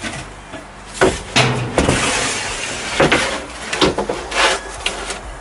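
Clattering knocks and scraping as boards and a mat are shifted and laid on a plywood sheet: half a dozen sharp knocks, with a longer scrape early on.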